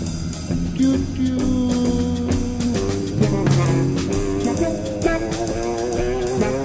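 Live band music: drum kit, guitar and saxophone playing over held low notes, with a voice chanting "tiu-tiu" about a second in.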